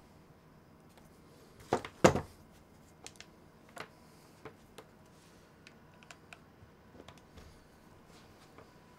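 Handling noise of charging cables and plugs on a desk: two loud knocks close together about two seconds in, then scattered light clicks and taps as the cables are sorted.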